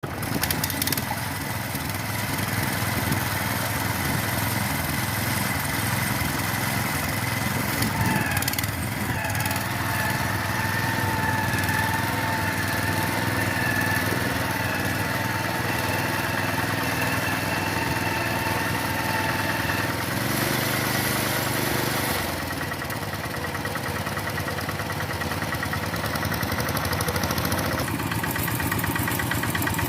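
Two-wheel hand tractors running steadily as they till a rice paddy, two engines going at once.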